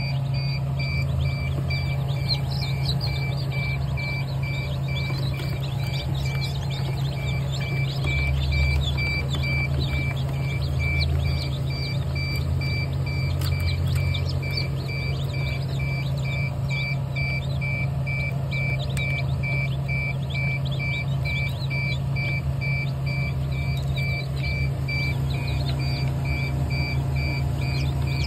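Many newly hatched chicks peeping continuously over a steady low machine hum, with a regular high beep repeating about twice a second.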